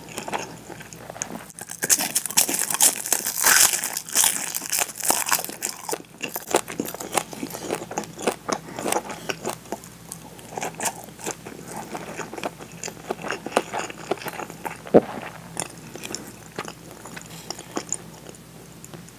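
A person chewing: crisp seasoned nori crunching loudly for a few seconds near the start, then softer, wetter chewing of a mouthful of white rice, with one sharp click about fifteen seconds in.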